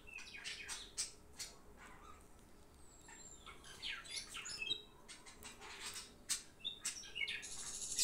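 Metal spoon beating an egg into milk in a small glass bowl: quick clinks and scrapes of the spoon against the glass. Short high chirp-like squeaks come in among them.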